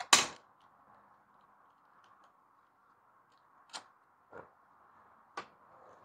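Hard plastic air cleaner housing knocking and clicking against a small engine's carburetor as it is fitted over the mounting studs: one sharp knock at the start, then three light clicks in the second half.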